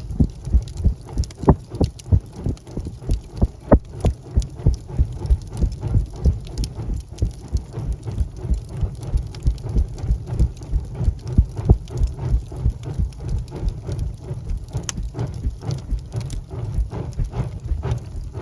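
Wood fire burning in a fireplace: sharp crackles and pops, a few louder ones, over a steady low fluttering rumble of the flames.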